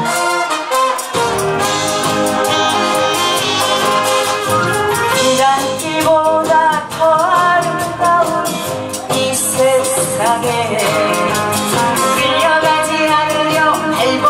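A woman sings a Korean trot song into a handheld microphone over amplified accompaniment with a steady beat. The bass comes in about a second in.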